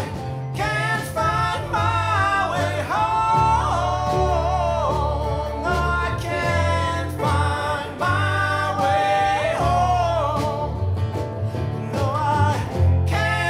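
A live acoustic band playing a country-style song with a man singing the lead: strummed acoustic guitars, upright bass and a snare drum keeping the beat.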